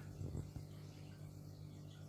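Quiet room tone with a steady low hum.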